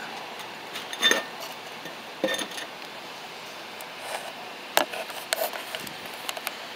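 A handful of sharp, irregularly spaced clinks and taps on an upturned glass tumbler. The loudest come about a second in and near five seconds.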